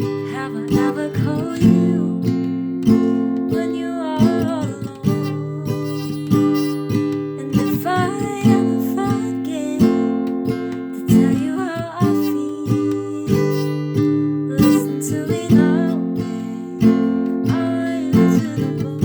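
Acoustic guitar strummed in a steady, slow rhythm, with a solo voice singing a melody over it in phrases every few seconds.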